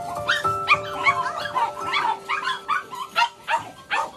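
Many caged dogs barking and yipping at once, a continuous chorus of short, overlapping high barks with no pause.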